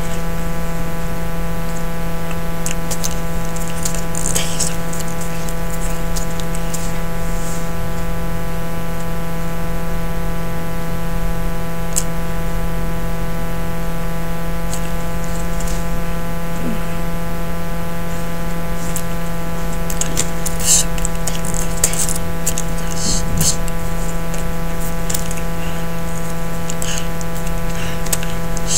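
A steady electrical buzzing hum with a stack of overtones, unchanging in level throughout. Faint scattered short hissy clicks and rustles come and go, most of them around a quarter of the way in and again past two-thirds.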